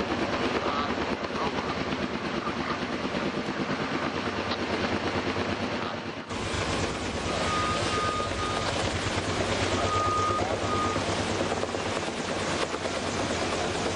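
Kaman K-Max helicopter with twin intermeshing rotors, running with a steady rotor beat. The sound grows fuller and heavier about six seconds in. Short runs of high beeping come twice in the second half.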